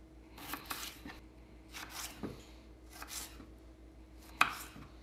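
Kitchen knife slicing through a raw potato on a wooden cutting board, cutting it into French-fry strips: four slow cuts about a second apart, the last ending in a sharp tap.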